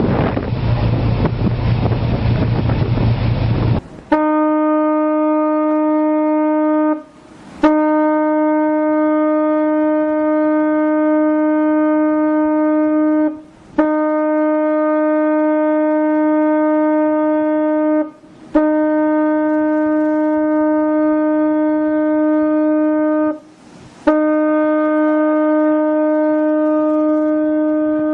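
Wind and sea rushing past for about four seconds, then a ship's horn sounding a run of long, steady blasts at one pitch, each three to six seconds long with brief breaks between.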